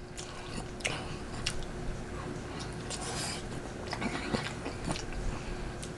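A person chewing food with open-mouth eating sounds: scattered wet clicks and smacks at an uneven pace.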